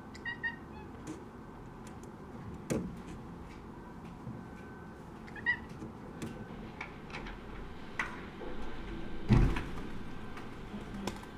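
A cat gives short, high chirping calls: a pair near the start and another about five and a half seconds in, the kind of chirp a cat makes while watching birds. Between them come a few light taps and knocks, the loudest a dull thump about nine seconds in.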